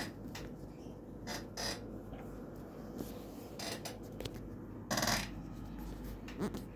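Handling noise: several brief rustles and rubs, the loudest and longest about five seconds in, over a low steady hum.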